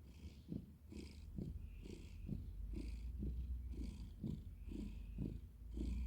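Domestic cat purring steadily, the purr swelling and fading in an even rhythm about once a second with its breaths.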